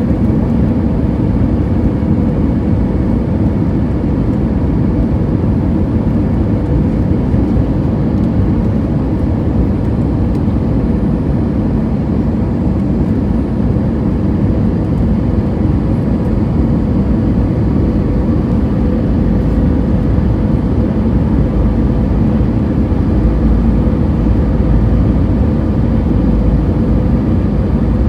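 Airbus A320ceo cabin noise on descent: a steady low rush of engine and airflow with a steady hum on top, heard from inside the cabin beside the engine. The low rumble grows a little stronger near the end.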